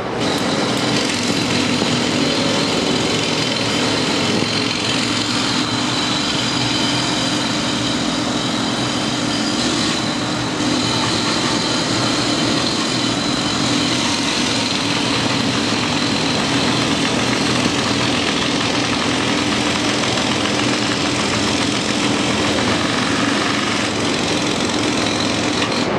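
Excavator at a night demolition site, its engine running in a loud, steady drone with a constant hum and no let-up.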